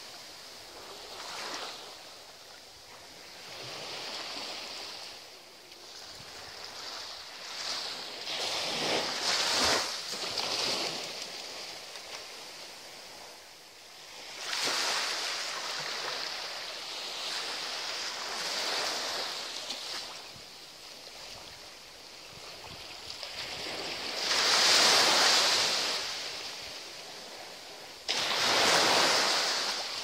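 Small waves breaking and washing up a sandy beach: a hiss of surf that swells and fades every few seconds. The loudest surges come near the end.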